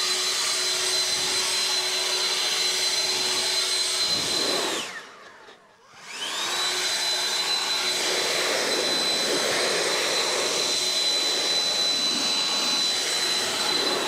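Husqvarna battery-powered leaf blower running at full speed, a steady high whine over a rush of air. About four and a half seconds in it spins down nearly to silence, then spins back up a couple of seconds later and runs on until it winds down at the very end.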